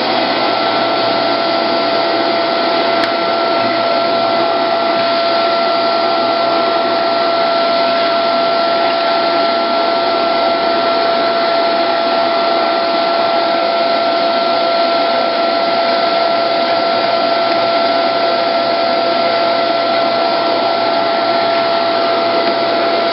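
CNC wood router's spindle motor running at a steady high speed: an unchanging whine over a loud hiss.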